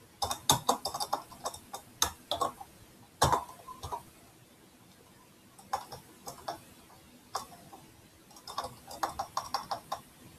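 Computer keyboard keys clicking in irregular bursts of typing with pauses between, the densest runs near the start and near the end.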